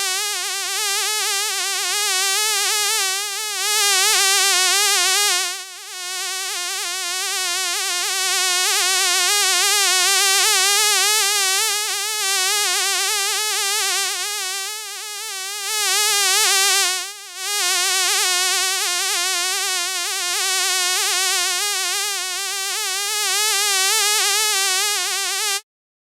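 A fly buzzing continuously in flight, its pitch wavering up and down, with two brief drops in loudness. The buzz cuts off suddenly near the end.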